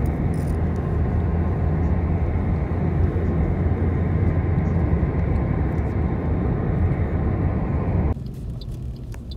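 Steady road noise of a car travelling at speed, heard from inside the car: a low tyre and engine rumble with wind hiss. It cuts off suddenly about eight seconds in, leaving a much quieter low hum.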